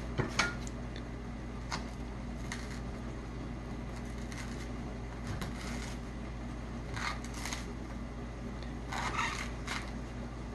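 Kitchen knife cutting and shaving the husk off the top of a coconut: scattered short slicing scrapes, with two sharp knocks just after the start and a busier run of scraping near the end.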